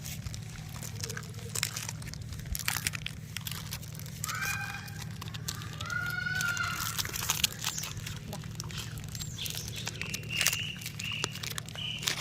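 Puppies eating: a steady run of small chewing and crunching clicks, over a steady low hum. A few short high-pitched calls come about halfway through and again near the end.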